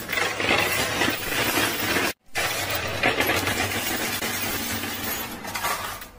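Poker chips clattering and clinking against one another on a coin pusher machine's playfield as the pusher shelf shoves the pile and chips drop. A dense, continuous clatter that cuts out briefly a little over two seconds in.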